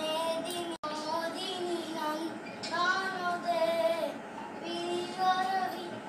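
A high, child-like voice singing a melody in long, gliding held notes, cut out for an instant about a second in.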